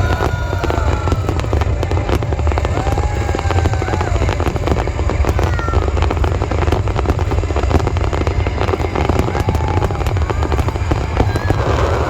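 Aerial fireworks display: a dense, continuous crackle of many bursts over a deep, steady rumble.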